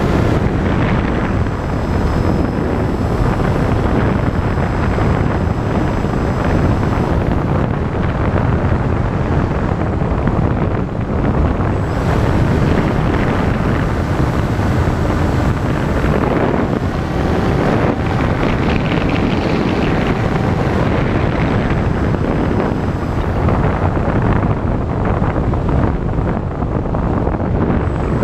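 Wind blowing hard across the microphone: a steady, loud rushing and buffeting, heaviest in the low end. Faint thin whines come and go in places.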